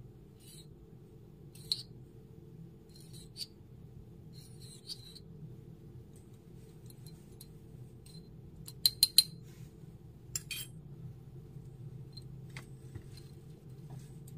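Small metal spoon clinking against the inside of a miniature steel bucket while stirring liquid, a scattered series of light clinks with three sharp ones in quick succession about nine seconds in, over a steady low hum.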